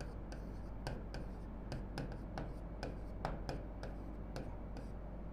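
Marker pen writing on a whiteboard: a run of short, faint scratches and taps as letters are drawn, over a steady low hum.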